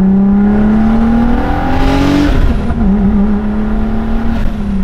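Turbocharged VR6 engine of a MK4 GTI under hard acceleration, heard from inside the car. Its note rises steadily for about two seconds, then drops and wavers before settling, with a further drop near the end.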